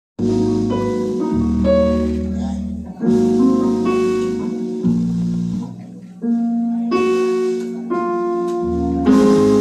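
Live band playing amplified: electric guitar and bass with keyboard, holding sustained chords that change every second or two.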